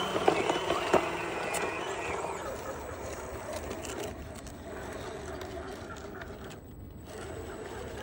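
Small electric drive motors and gearboxes of an RC tracked skid steer loader whining, the pitch wavering as it crawls, with clicks and scrapes from the tracks on rock. After about two seconds the sound drops to a fainter, steadier hum.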